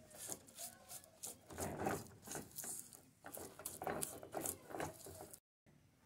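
Silicone spatula scraping and stirring grainy, half-melted sugar around a pan: faint gritty rubbing in repeated strokes as the sugar starts to melt into caramel. The sound cuts out briefly near the end.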